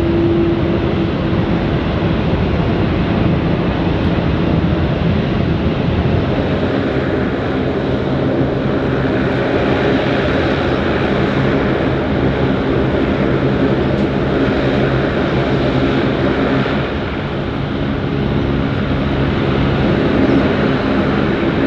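Airliner engines at takeoff power: a loud, steady roar with low droning tones underneath.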